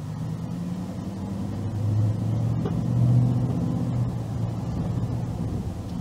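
Car engine pulling away and accelerating at low speed. A low hum builds to its loudest about three seconds in, then eases a little.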